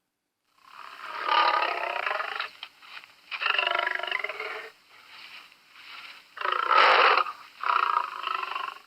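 Lion roaring: a series of four long roars with a fainter one between the second and third, the third roar the loudest.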